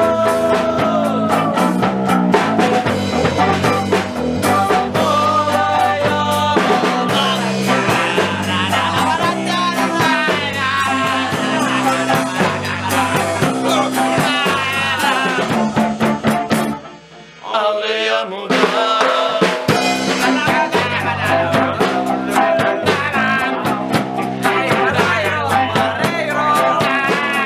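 Band music with drums, a repeating bass line and a wavering melody line over it. It drops out briefly about two-thirds of the way through, then resumes.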